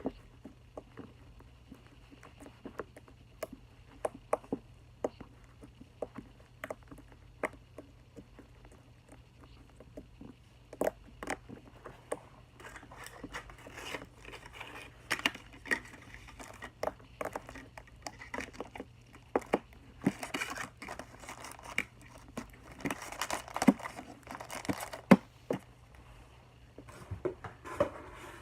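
Slime being squished and poked by hand, making scattered sharp sticky clicks and pops that thicken into a dense crackling in the second half.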